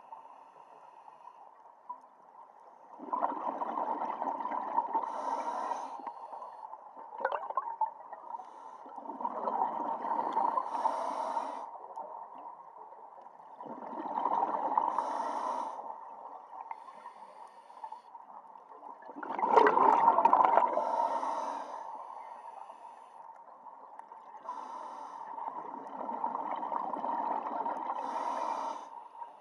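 A scuba diver breathing through a regulator underwater, one breath about every five seconds. Each breath is a rush of bubbling that ends in a short hiss. The breath about twenty seconds in is the loudest.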